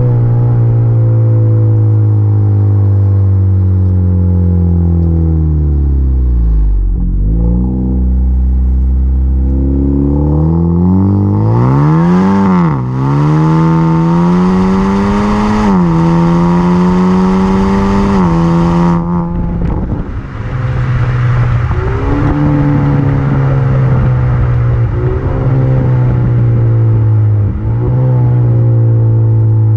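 Exhaust note of a Honda Accord 2.0T's turbocharged four-cylinder through a Thermal R&D exhaust with PRL front pipe and RV6 catted downpipe. The engine note falls as the car slows, then rises through a hard pull with three quick upshifts of the 10-speed automatic, a hiss riding over the pull. It then settles into a steady cruise.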